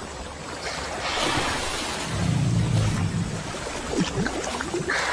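Water splashing and churning as crocodiles thrash in the shallows, strongest a second or two in, with a low rumble about two seconds in.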